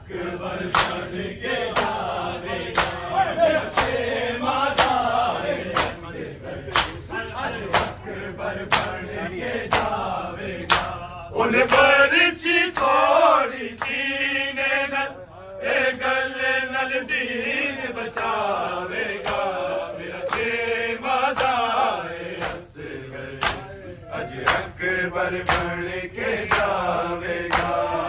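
A crowd of men chanting a mourning noha in unison, with rhythmic open-handed chest-beating (matam) slaps about every two-thirds of a second. About halfway through, a single lead voice carries a line, loudest of all.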